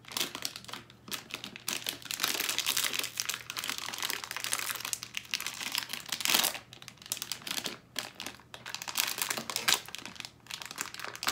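Foil blind-bag wrapper crinkling and crackling in a continuous, irregular way as it is squeezed and twisted in the hands while someone tries to get it open.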